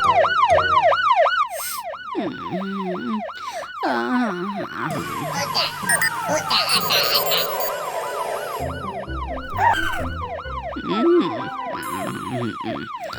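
Cartoon fire truck siren wailing in a fast, repeated rise and fall, about four sweeps a second.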